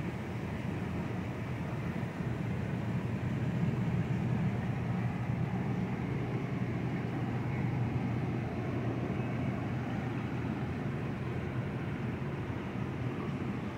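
Steady low rumble with a churning-water hiss from a live-fish tank's pump and aeration, running without a break.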